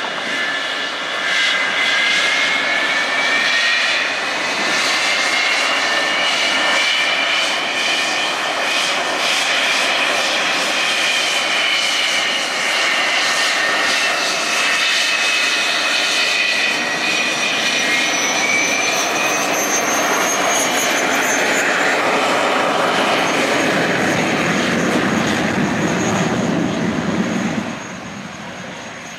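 The BAC Lightning F6's two Rolls-Royce Avon turbojets running loud, with a high whine that rises and falls over the roar as the jet is marshalled out and taxis. The sound drops off sharply near the end.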